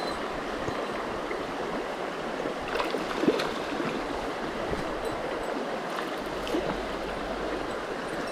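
Headwater mountain stream rushing steadily over rocks, with a few light clicks about three seconds in.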